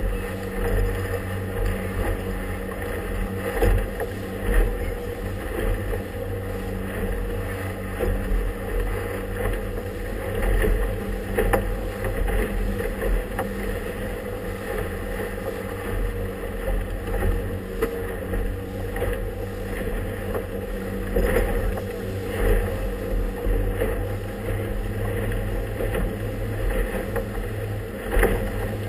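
Motorboat engine running with a steady drone as the boat travels through choppy water, with occasional thumps of the hull meeting the chop.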